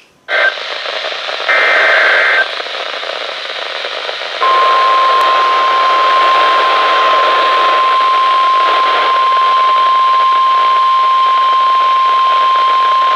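NOAA Weather Radio warning alarm received over a radio with steady static hiss. A short burst of the buzzing SAME data header comes near the start. About four seconds in, the steady 1050 Hz warning-alarm tone begins and holds for about nine seconds, the sign that a warning message follows.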